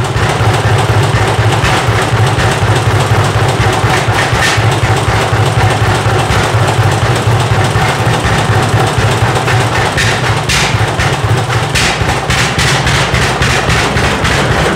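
Large antique tractor engine running steadily just after a cold start, with a deep low beat and sharp clicks or pops that come more often in the last few seconds.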